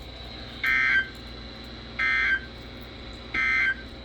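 NOAA Weather Radio SAME end-of-message code: three short, identical digital data bursts, a harsh buzzing warble about a second and a half apart, marking the end of the flash flood warning. Faint steady radio hiss between the bursts.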